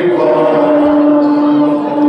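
Voices chanting a noha, a Shia Muharram lament, with one long held note starting about half a second in.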